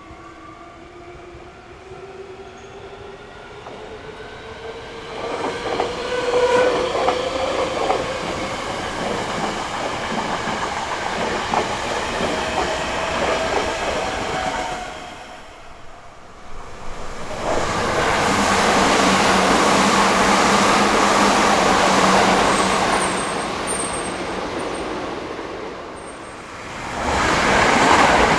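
Hankyu Kyoto Line electric trains passing a level crossing. First comes a train's motor whine rising in pitch, followed by loud wheel clatter on the rails. After a brief lull about halfway through, a second train goes by with a steady low hum, and another loud passage starts near the end.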